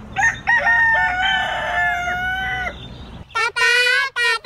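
A rooster crowing once, a long crow of about two and a half seconds. High children's voices follow from about three seconds in.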